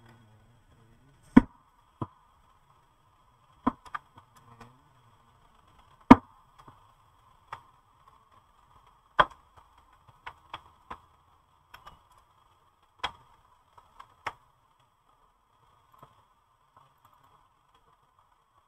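Handling noise: about a dozen sharp clicks and taps at irregular intervals, with a faint steady whine underneath.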